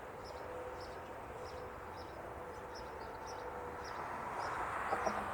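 Outdoor background noise with a steady faint hum and small high chirps about twice a second. The noise swells near the end, with a couple of clicks about five seconds in.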